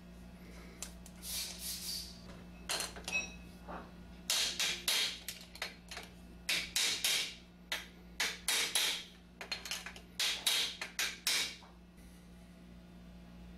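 Hammer striking a punch in a long, irregular series of sharp metal taps, driving the press-fit head of a Columbia automatic drywall taper onto its tube.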